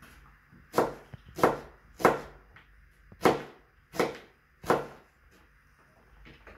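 A kitchen knife slicing through onion and striking a plastic chopping board, six strokes over about four seconds.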